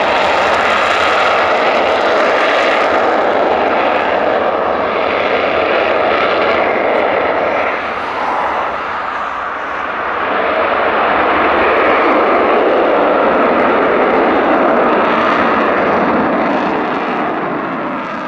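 Eurofighter Typhoon jet engine noise, steady and loud, dipping briefly about halfway through and fading away near the end.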